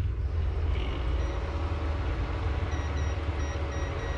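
Induction cooktop running with a steady low hum and fan whir, with faint short beeps repeating in the second half.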